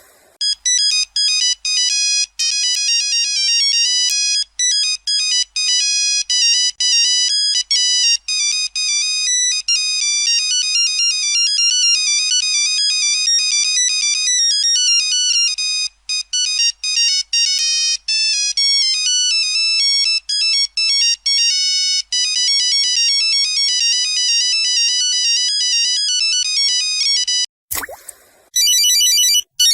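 Mobile phone ringtone playing a melody of quickly changing high electronic notes. It stops near the end, and after a brief gap another ringtone starts.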